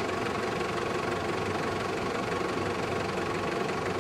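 Steady mechanical hum with a constant low drone and a faint mid-pitched tone, unchanging throughout.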